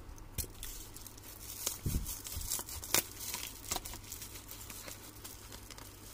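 Thick black plastic bubble-wrap packaging being cut with scissors and torn open by hand, with irregular crinkling, tearing and crackling.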